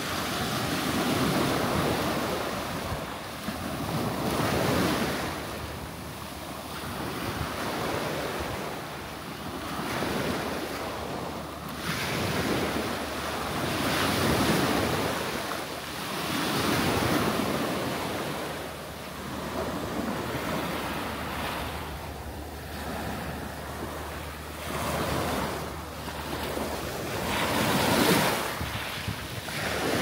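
Small sea waves breaking and washing up a sandy, shell-strewn shore, a rush of surf every two to three seconds.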